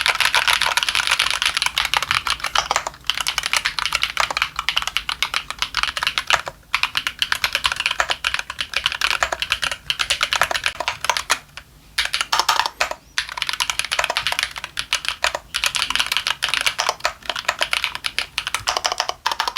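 Fast continuous typing on a NocFree Lite split mechanical keyboard with NocFree Snowpaw switches, top-mounted and fully foamed inside, with a few brief pauses in the keystrokes.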